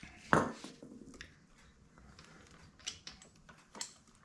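Hand work on small parts and tools: a sharp knock about a third of a second in, then scattered light clicks and taps, with two more distinct clicks near the end.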